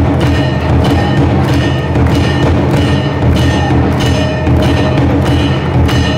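Temple aarti percussion: a large drum beaten in a steady rhythm of about two strokes a second, with metal bells clanging over it.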